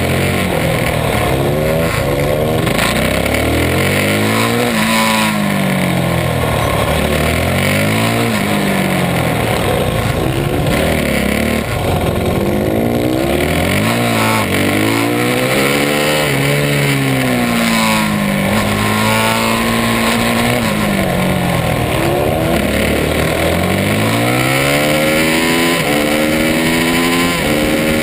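Supermoto race motorcycle engine heard onboard at racing pace, its revs climbing hard on each acceleration and dropping away as the bike brakes and leans into the next corner, over and over.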